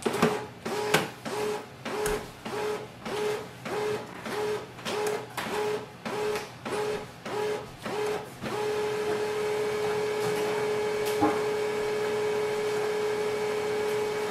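HP LaserJet Pro MFP 3101fdw laser printer starting up after power-on: its internal motor whirs in short, evenly repeated pulses, a little under two a second. A little past halfway it settles into a steady motor hum, with a single click a few seconds later.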